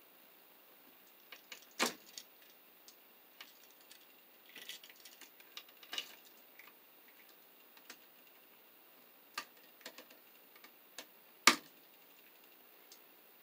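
Scattered small clicks and taps of pliers and wire being worked on a wall switch as its ground wire is hooked up, with two sharper knocks, one about two seconds in and one near the end.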